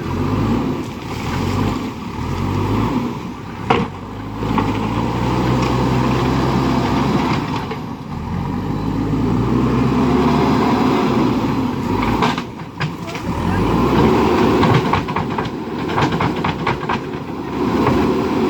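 JCB backhoe loader's diesel engine running and revving up and down as it works, with a sharp knock about four seconds in and a run of metallic clanks from about twelve to seventeen seconds.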